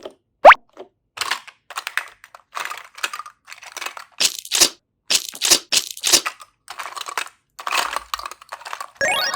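Slime being squeezed and squished, making irregular bursts of wet crackling and crunching. A short rising cartoon chirp comes just after the start, and a rising swept sound effect near the end.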